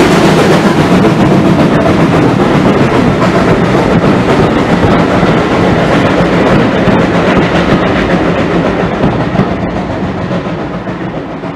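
Steam locomotive and its coaches passing close by, wheels rumbling and clattering over the rail joints. The sound echoes under a concrete bridge and fades as the last coach goes by near the end.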